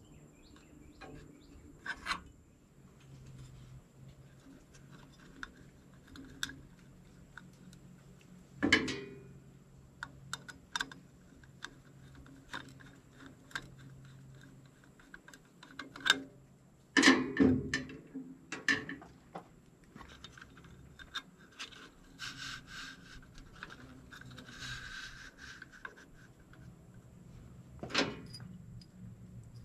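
Scattered clicks, light metal knocks and scraping of a steel bracket, DRO sending unit and screws being handled and screwed together by hand, with a handful of louder knocks spread through.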